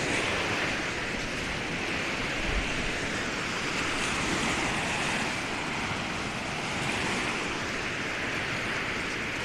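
Small waves breaking and washing up on a sandy beach: a steady rush of surf that swells gently now and then.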